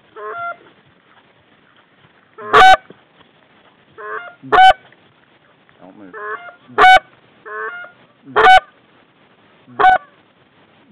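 Goose call blown by a hunter to bring in Canada geese: about five loud two-note honks, each a low note breaking up into a sharp high one, every second and a half to two seconds.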